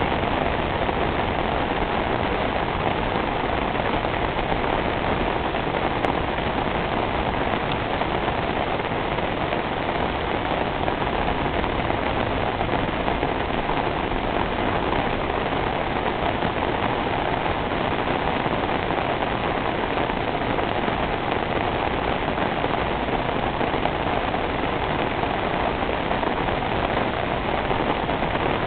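Heavy rain falling steadily on a flooded paved street, the drops striking standing water.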